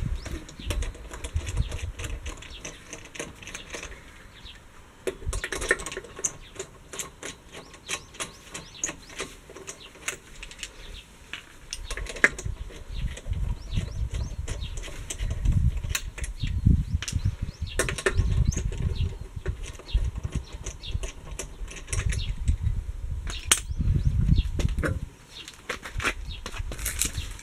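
Irregular clicks and light clinks, with bursts of low rumble.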